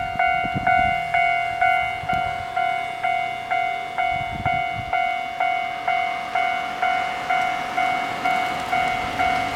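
Japanese level-crossing warning bell ringing steadily, about two strokes a second, with low rumbles from the railway beneath it.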